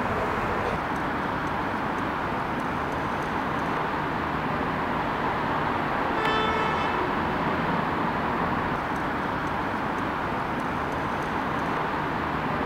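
Steady hum of distant city traffic, with a car horn sounding briefly about six seconds in.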